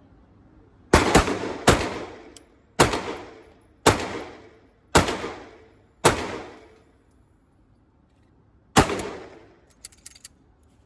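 FN 509 pistol fired seven times at a steady pace of about one shot a second, the last after a short pause, each shot trailing off in a ringing echo.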